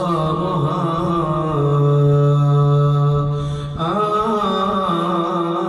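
A man's voice chanting an Arabic elegy for the Shia mourning ritual, drawing the last word of a line out into one long held note around the middle, then starting a new wavering sung phrase.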